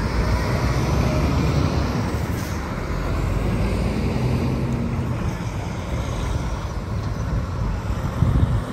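Diesel lorry engine running as the truck drives out, a steady low engine note, with a brief low thump near the end.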